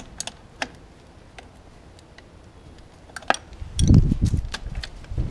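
Scattered light metallic clicks and taps of a wrench working the adjuster and lock nuts on a motorcycle's throttle-cable bracket at the throttle bodies. A short burst of low rumbling handling noise comes about three and a half seconds in.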